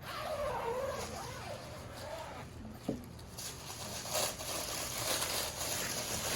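Rustling and scraping of packaging as a replica championship belt is handled and slid out of its sleeve, with a sharp click about three seconds in. A brief wavering tone comes at the start.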